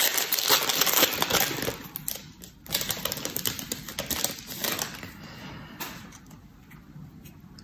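Foil trading-card pack crinkling and tearing open, a dense crackle of small clicks that fades away after about five seconds as the cards are drawn out.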